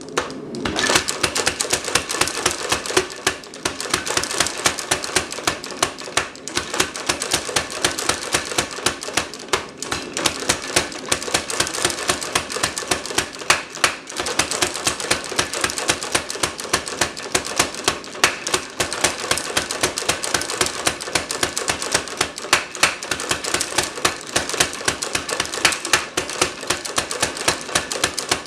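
Rapid, steady hammer blows on hot steel over an anvil, tapering the end of a bar, with a few short pauses.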